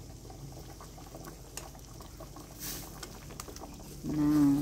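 Instant noodles simmering in water in a steel wok, bubbling, with faint taps of plastic chopsticks stirring. A brief voice sounds near the end.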